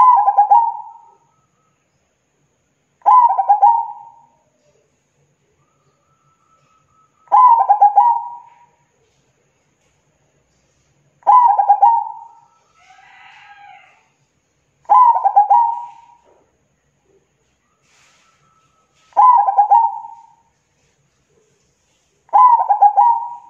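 Zebra dove (perkutut) singing: seven cooing phrases, each a quick stuttering run of notes lasting about a second, repeated every three to four seconds.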